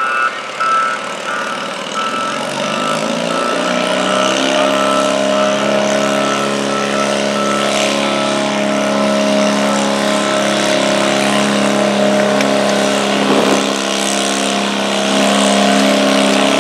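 Stock altered garden tractor's engine working hard under load as it pulls a sled, with the large sled tractor running behind it. The engine note builds over the first few seconds, holds steady and grows a little louder near the end. A row of short beeps fades out over the first few seconds.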